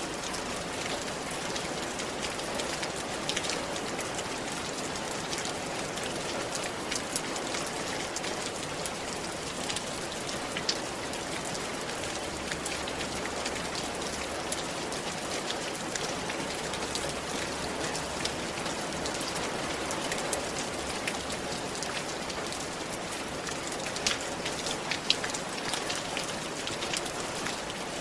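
Steady rain falling on a roof: a continuous patter with many sharp individual drop strikes, a few louder ones near the end.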